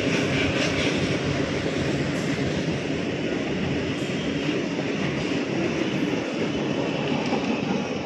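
Indian Railways coal goods train's wagons rolling along the rails, a steady loud rumble and rattle.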